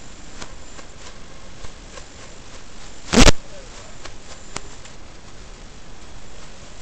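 Steady static hiss with faint crackles from the recorded analog FPV video receiver audio, broken by one loud, short crackling burst about three seconds in.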